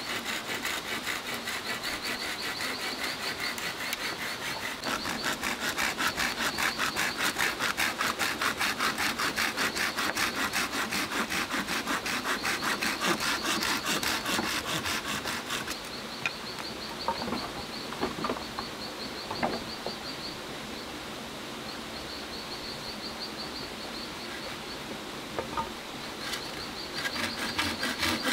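Hand pruning saw cutting through green bamboo in fast, even strokes. The sawing stops about halfway through and starts again near the end. In the pause, insects buzz steadily in the background and there are a few light knocks.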